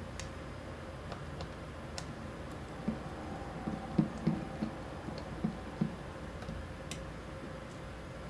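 Small precision screwdriver turning out a screw from the plastic body of a Canon Rebel T6 (1300D) camera: a run of about ten soft ticks in the middle, with a few sharp single clicks before and after.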